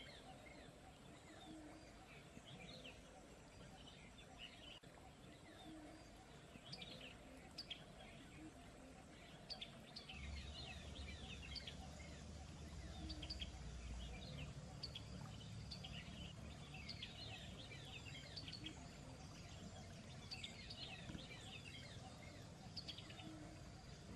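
Songbirds chirping faintly outdoors: many short, quick calls scattered throughout over a soft background hiss. A low, steady rumble comes in about ten seconds in and lasts some four seconds.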